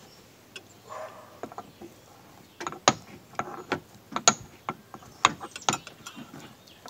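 Irregular clicks and taps of a metal utensil against a small mortar as chopped wood sorrel is put into it, coming thick and fast from about halfway through.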